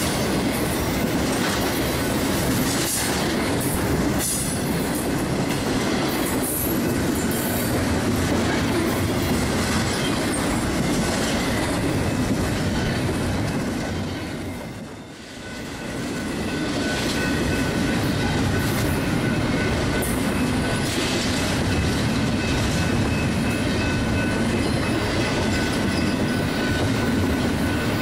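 Double-stack intermodal freight train rolling past close by: a steady rumble and clatter of the loaded well cars on the rails. The sound dips briefly about halfway through. In the second half a steady high whine rides over the rumble.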